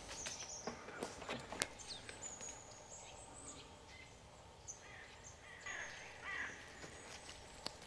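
Faint woodland birdsong: thin high calls and short chirps, with a few sharp clicks just after the first second, the loudest at about a second and a half in.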